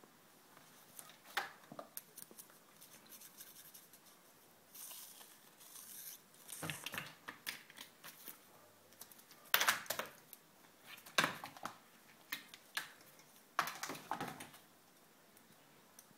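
Irregular scratching and rustling of a cat's claws and paws scrabbling against a plastic laundry basket, in short bursts a second or two apart, the loudest a little past halfway.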